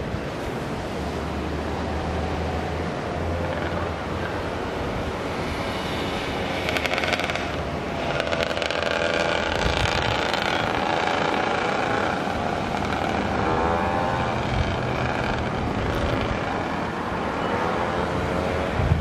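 Motor vehicle engines running and passing, one engine note rising and bending about two-thirds of the way through.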